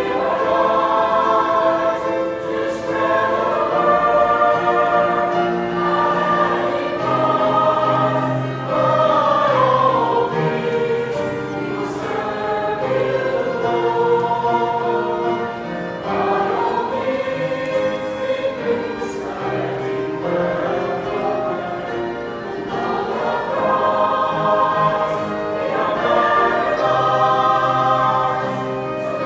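Mixed church choir of men's and women's voices singing a hymn, in long held phrases.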